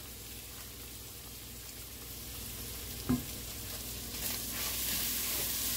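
Ground beef with onion and garlic sizzling as it fries in a pan and is stirred, the hiss louder in the last couple of seconds. One brief, sharp sound about three seconds in.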